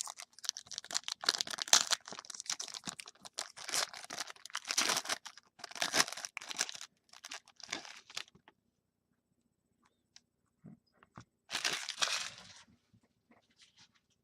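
Plastic wrapping on a sealed box of trading cards being torn open and crinkled. It rustles irregularly for about eight seconds, pauses, then crinkles again briefly near the end.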